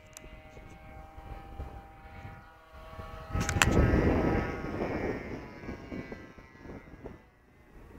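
Radio-controlled Kyosho Calmato model airplane's motor whining steadily high overhead, its pitch shifting a little as it flies. About three seconds in, a loud rush of wind buffeting and a couple of handling clicks on the microphone cover it for a second or two.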